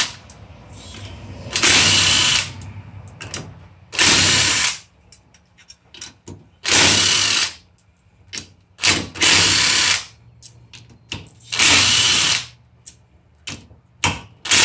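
Cordless drill with a 10 mm socket spinning bolts out of a supercharged intake manifold. It runs in about six short bursts of under a second each, with a few brief blips between them and pauses as it moves from bolt to bolt.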